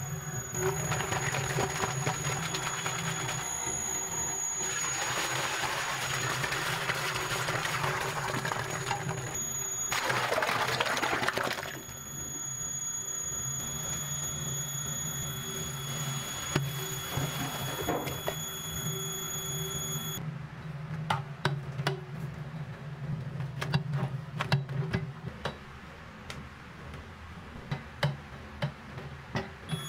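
Electric batter mixer running, its motor humming steadily while a metal paddle churns eggs and flour in a steel bowl. There are stretches of hissing noise in the first twelve seconds and scattered clicks and knocks in the last ten.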